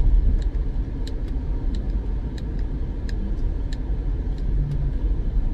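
Car cabin sound while driving: a steady low road and engine rumble. Over it runs the regular paired ticking of the turn-signal indicator, about one tick-tock every two thirds of a second.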